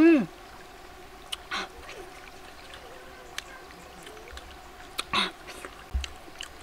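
A woman's short closed-mouth "mmm" that rises and then falls at the very start. After it come faint scattered clicks and brief soft rustles from peeling and eating a boiled egg.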